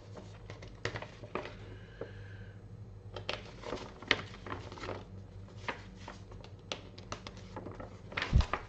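Small plastic model parts clicking and tapping as they are handled, in irregular light clicks, over a faint steady hum; a duller thump sounds near the end.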